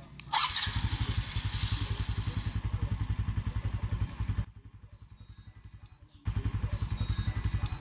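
Honda XRM 125 Fi's single-cylinder four-stroke engine remote-started by its alarm: it cranks and catches about half a second in, then idles with a steady, even beat. It dips quieter for about two seconds midway, then cuts off at the very end as it is shut down from the remote.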